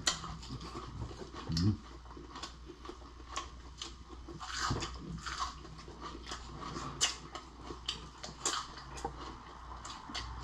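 Close-up eating sounds: a person chewing seafood, with many short, sharp mouth clicks and smacks.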